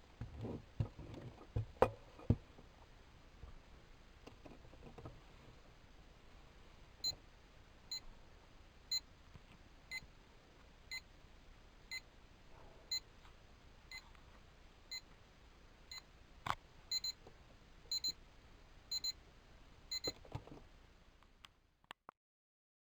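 Lego Monster Fighters Mummy alarm clock's alarm beeping: short high beeps once a second, which turn into quicker double beeps after about ten seconds and then stop. Before the alarm starts there are handling clicks and knocks.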